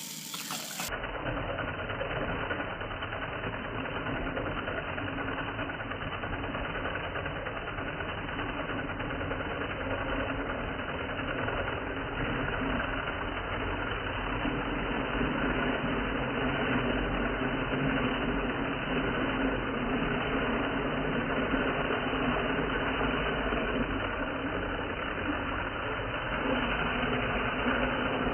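Small Lego electric motor running steadily through a train of plastic gears, a constant whirring hum.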